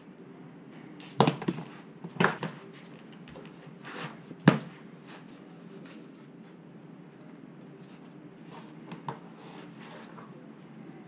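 Running shoes being put on and laced by hand on a hard kitchen floor: soft handling and lace rustles with a few sharp knocks, about one, two and four and a half seconds in, over a steady low hum.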